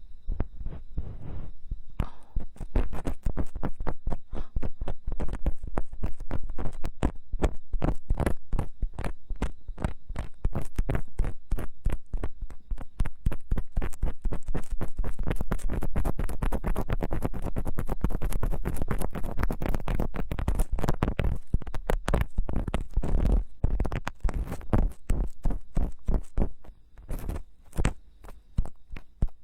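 Ear-cleaning tools scraping and rubbing against a silicone binaural-microphone ear: a close, dense run of rapid crackling scratches with a deep rumble underneath, thinning to sparser strokes near the end.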